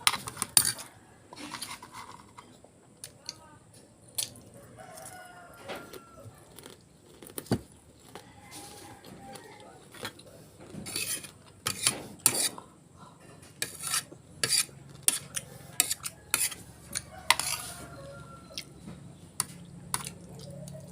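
Spoon and fork clinking and scraping against a plate in irregular sharp clicks while someone eats. A few short pitched calls sound faintly in the background.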